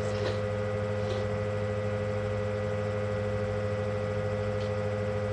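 Steady low electrical hum made of a few constant tones, unchanging throughout.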